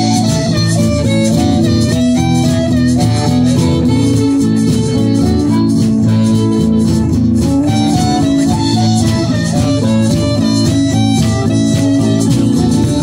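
Acoustic string band playing live: guitars over an upright bass, with a melody moving in quick runs of notes.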